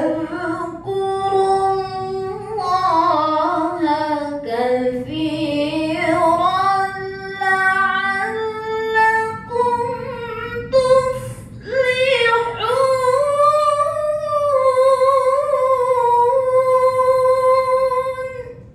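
A woman reciting the Quran in the melodic, chanted tilawah style through a microphone: several ornamented phrases that glide up and down between short breaths, then one long held note over the last five seconds that fades just before the end.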